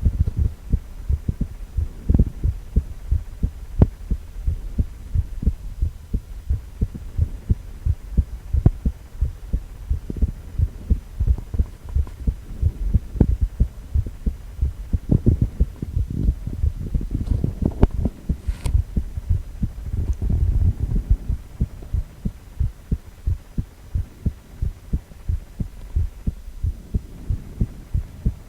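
A man's heartbeat: evenly repeating low thuds over a low hum. A single sharp click comes about two-thirds of the way through.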